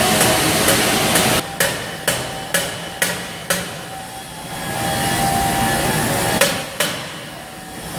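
Hammer blows on metal: five sharp strikes in quick succession, about two a second, then a pause and two more near the end. They sound over the steady noise of shop fans.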